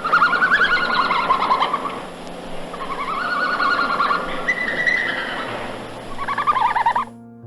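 A bird calling in fast, wavering warbled trills, in four separate phrases over a noisy background.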